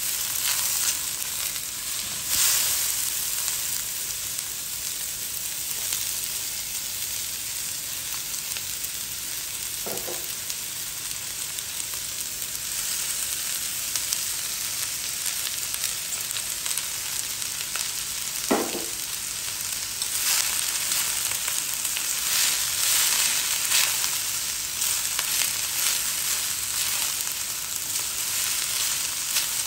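Onion, egg and shredded cabbage and carrot sizzling in a hot stainless steel wok while being stir-fried with a spatula: a steady frying hiss that grows louder for a few seconds from about twenty seconds in. Two short squeaks come at about ten and eighteen seconds in.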